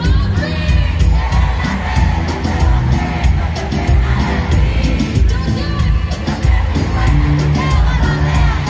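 Live concert music in an arena, heard from among the audience: loud amplified music with a steady beat and singing, over crowd noise and cheering.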